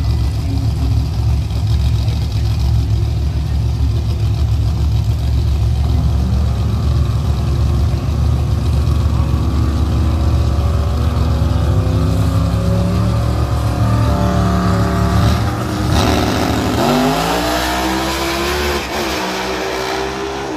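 Two drag-racing cars' engines running loudly at the starting line, the revs climbing as they stage. About three-quarters of the way through they launch, and the engine pitch climbs sharply as they pull away down the track.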